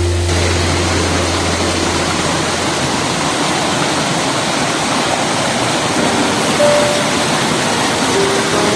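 Water of a small waterfall rushing and splashing over rocks, a steady, loud, even rush.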